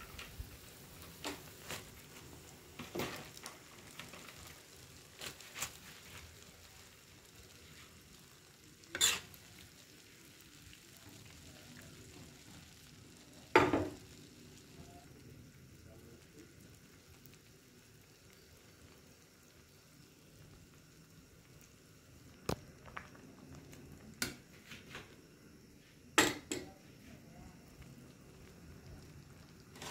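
Broth simmering in a wok of fish balls and rice noodles, with about ten sharp clinks and knocks of a utensil against the pan scattered through it, the loudest near the middle.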